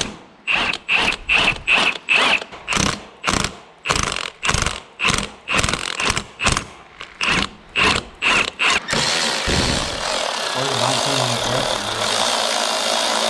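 Hand ratchet wrench being worked back and forth on a bolt, a burst of ratchet clicks on each stroke, about two strokes a second. About nine seconds in, a cordless electric ratchet takes over with a steady whir.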